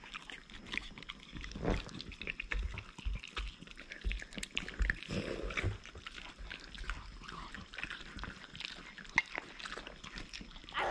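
Pet dogs sniffing and smacking their lips up close, with scattered small clicks and rustles, as they beg for food.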